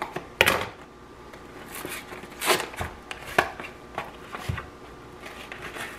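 A cardboard box of hash brown patties being handled and opened: a handful of scattered rustles, crinkles and taps of cardboard and paper packaging.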